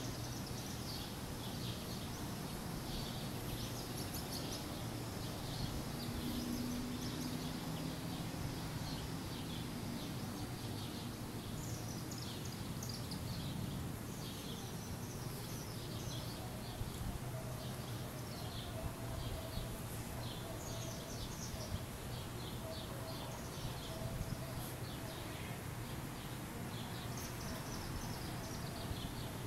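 Outdoor ambience: birds chirping in many short, quick, repeated calls over a steady low background hum.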